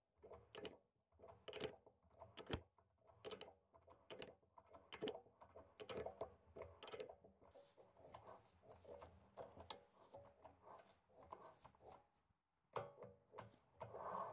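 Faint, irregular clicks and creaks of a hand tap cutting a small inside thread in tough steel, worked slowly a bit at a time with a tap wrench as the part turns in the lathe chuck.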